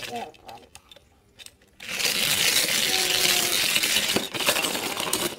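Die-cast Take-n-Play Diesel toy engine rattling down a plastic spiral tower track: a dense rattle of small metal wheels on plastic that starts about two seconds in and lasts about three seconds.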